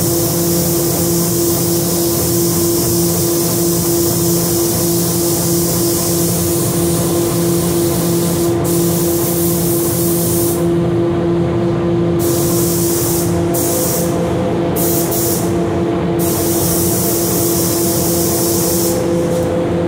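Gravity-feed automotive spray gun hissing as paint is sprayed onto a truck panel: one long pass of about eight seconds, then several shorter bursts as the trigger is pulled and released. A steady machinery hum runs underneath.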